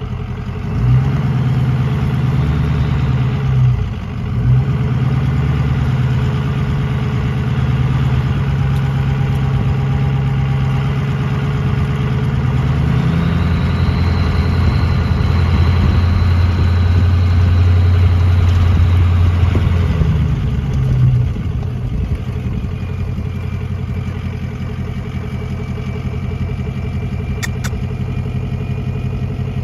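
Ford F-250's 6.0-litre Power Stroke V8 turbo-diesel running as the truck creeps along at low speed, heard from the driver's window. The engine note steps up and down and is loudest from about fourteen to twenty seconds in, with a faint high whistle over it, then settles to a lower, steadier rumble.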